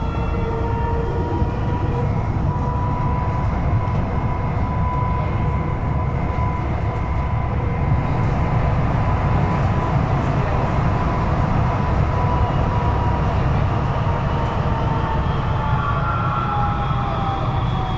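Siemens VAL 208 rubber-tyred automatic metro running, heard from inside the train: a steady rolling rumble under the whine of its electric traction drive. The whine holds steady for most of the stretch, then sinks in pitch over the last few seconds while a higher whine rises.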